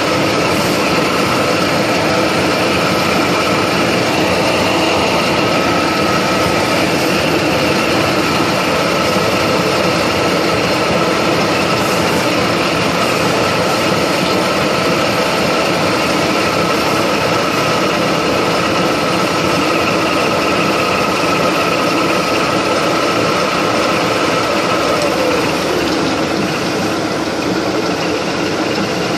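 Vertical milling machine running, its end mill cutting a flat of a hexagon on a metal pipe fitting turned on a rotary table: a steady dense machining noise with a faint hum. Near the end the sound gets a little quieter.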